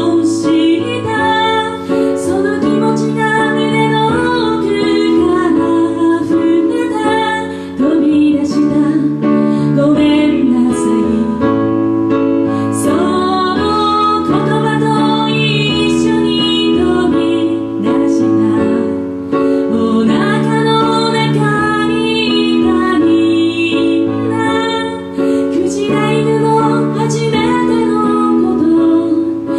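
A woman singing a slow song to her own keyboard accompaniment in a piano sound, with held chords under the sung melody.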